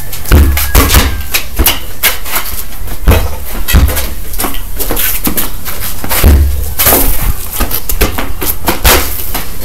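Repeated sharp knocks and several heavy thumps, irregularly spaced: a soccer ball being kicked and striking the concrete and wall, mixed with footsteps.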